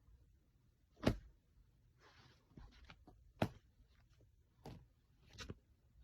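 A few scattered knocks and taps against a quiet background. The two loudest come about a second in and midway through, with softer ones near the end and a few faint ticks in between.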